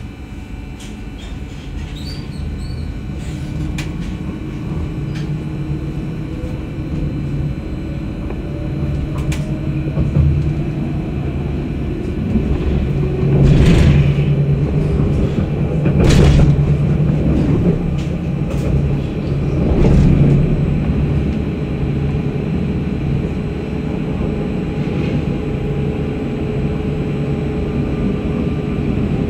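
Electric tram pulling away from a stop and gathering speed, with a rumble of wheels on rail that grows louder and a motor whine that rises slowly in pitch. A few louder rushes of rail noise come about halfway through.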